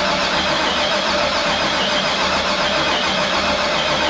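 A 6.2-litre GM LS V8 being cranked over on its starter without firing, its injectors and coil packs unplugged, to build oil pressure. It is a steady, loud cranking with a rapid low pulsing. The oil pressure is not coming up.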